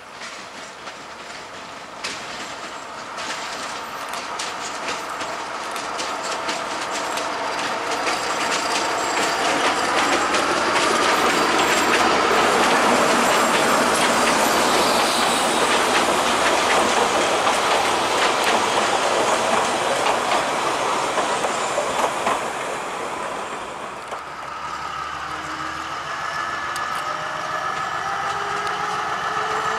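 Narrow-gauge BDŽ diesel locomotive hauling passenger coaches grows louder as it approaches and passes close, its engine droning and the wheels clattering over the rail joints, with some wheel squeal. About 24 s in the sound drops, and a class 75000 diesel locomotive is heard approaching, its engine note rising.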